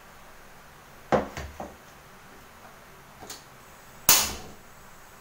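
Hollow knocks as a plastic water jug is set down and handled on a tabletop, then one sharp, louder click with a brief rush about four seconds in as a hand works the gas stove.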